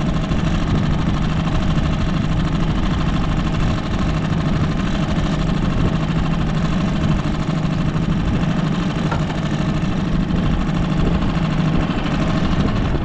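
A small boat outboard motor running steadily, with an even, unbroken drone.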